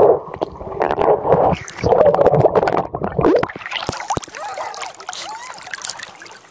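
Water churning and bubbling around a submerged microphone as a small dog in a life jacket plunges in off an inflatable raft, heard muffled and dull in two long surges. About three and a half seconds in it gives way to quieter splashing and lapping as the dog swims at the surface.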